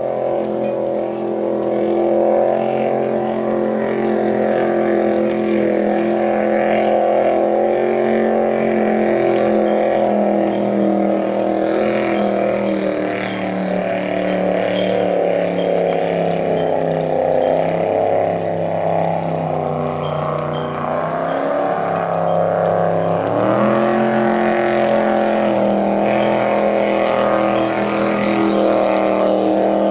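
Vintage wooden race boat's inboard engine running hard at planing speed, a steady pitched drone. Its pitch sags a little past the middle, then climbs sharply about three-quarters of the way in and holds there.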